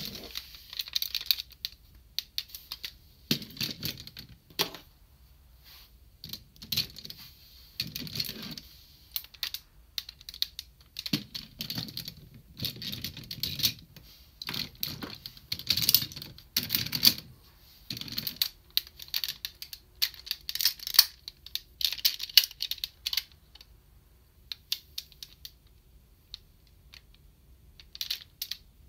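Plastic parts of a DX Cho ToQ-Oh combining train-robot toy being handled and fitted together by hand: a run of clicks, snaps and rattles, thinning out near the end.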